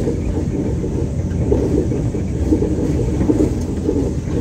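Steady low rumble of a vehicle driving along a road, heard from on board: road and engine noise with no distinct pitch.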